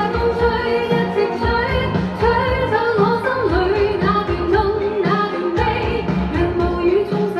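Chinese pop song playing: a lead melody over a steady beat.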